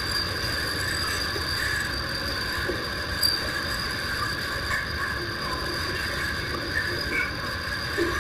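Steady background drone of several even high tones over hiss and low rumble, with a few faint short chirps.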